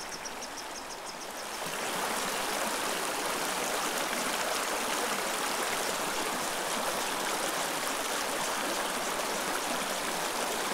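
Small rocky mountain creek running over stones: a steady rush of water that gets louder about two seconds in.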